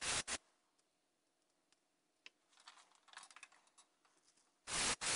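An airbrush spraying paint in short bursts of hissing air, stopping just after the start. A few faint light clicks and taps follow, and the airbrush sprays again in two short bursts near the end.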